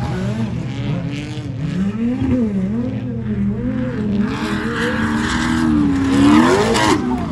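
Off-road race vehicles' engines revving hard through dirt turns, the pitch rising and falling again and again. Near the end a vehicle passes close and loud, its pitch sweeping up then down.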